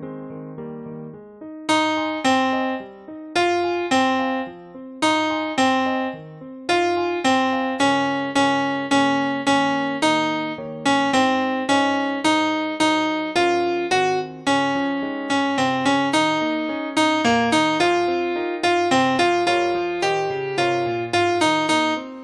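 Piano-like keyboard playing a melody of struck notes that ring and fade. The notes come slowly at first and quicken after about six seconds.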